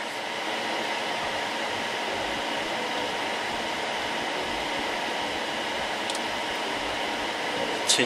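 Steady whir of cooling fans with a faint steady hum tone, with a faint click about six seconds in and another near the end.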